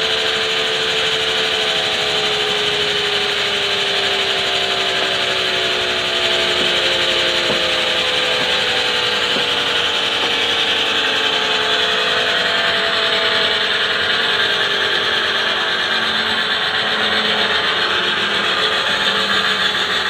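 Band sawmill running steadily as it saws through a log, a loud, even machine noise with a few tones sliding slowly lower over the first several seconds.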